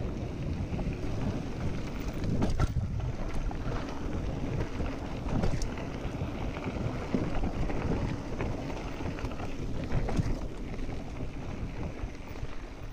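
Wind buffeting the microphone and mountain-bike tyres rumbling over a dry dirt trail on a fast descent, with a few sharp knocks and rattles from the bike over bumps.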